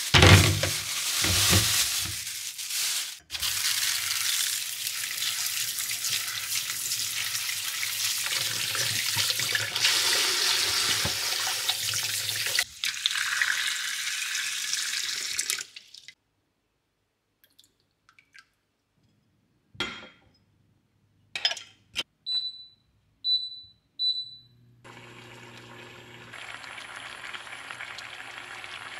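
Kitchen tap running hard into a stainless steel sink as plums are rinsed in a bowl, with a few knocks of fruit dropping into a colander at the start; the water stops about 16 seconds in. After some scattered clicks come three short electronic beeps, then a quieter steady hum and hiss.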